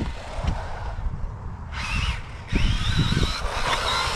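Brushless electric motor of a 1/8-scale 4x4 RC short-course truck whining as it is throttled, the pitch rising and falling with speed, louder and climbing again after about two and a half seconds. A low, uneven rumble runs underneath.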